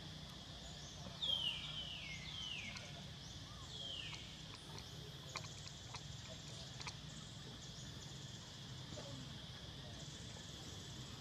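Tropical forest ambience: a steady high-pitched insect drone, with four falling whistled calls in the first few seconds and a few faint clicks later on.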